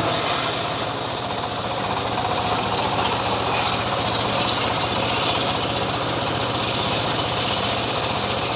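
Homemade engine-driven sawmill rig running steadily while sawing mahogany wood.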